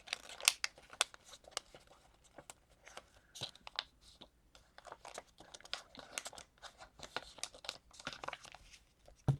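A sheet of paper being folded and a flap tucked into a pocket by hand: irregular crinkling and rustling with small crisp clicks and scrapes of paper against paper and fingers.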